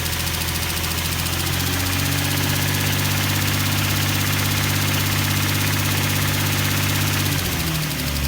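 Nissan 350Z's 3.5-litre V6 idling steadily with the ticking noise its owner is recording, its note shifting slightly about two seconds in and again near the end.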